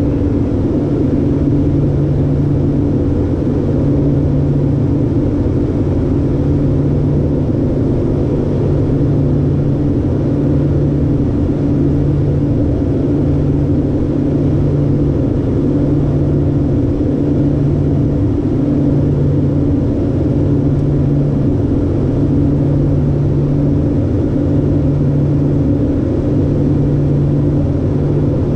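LET L-410's twin turboprop engines and propellers droning steadily in the cockpit during the descent. It is a low hum that throbs slowly and regularly, about once every two seconds.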